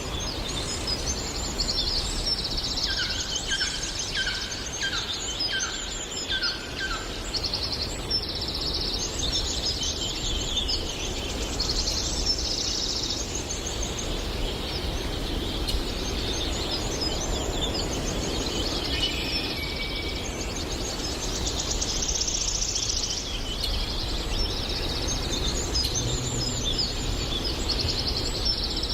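Several songbirds singing at once, high chirps and trills overlapping, over a steady background hiss. From about three to seven seconds in, one lower bird repeats a short slurred note about six times.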